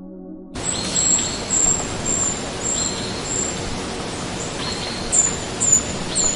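A bird calling: short, high, thin notes repeated about twice a second, then three louder notes that drop in pitch at the end, over a steady outdoor hiss. The sound starts abruptly about half a second in.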